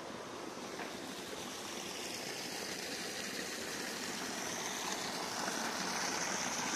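Steady rush of water from a small waterfall spilling into a rock pond, growing slightly louder toward the end.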